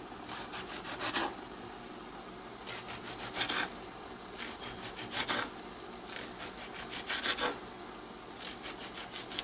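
Serrated knife sawing through a tomato on a wooden cutting board, in five short bursts of quick back-and-forth strokes about two seconds apart.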